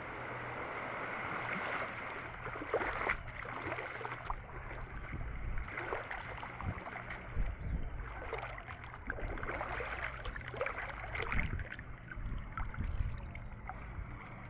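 Tour boat under way: the engines hum low and steady beneath water rushing and splashing along the hull.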